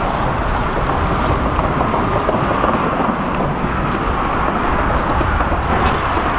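Steady wind buffeting the microphone: a constant low rumble with hiss on top and no separate events.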